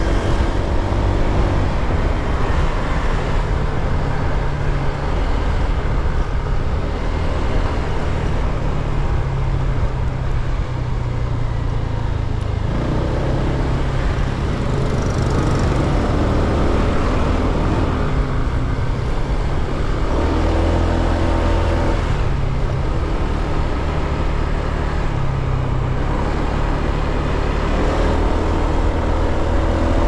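Motor scooter's small engine running as it is ridden along a road, its tone rising and falling with changes in speed over a steady low rumble.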